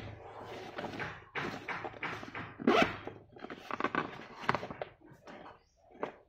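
Hands handling a fabric insulated thermal bag: irregular rustling and rubbing of the fabric with a few soft thumps as it is turned over and pressed.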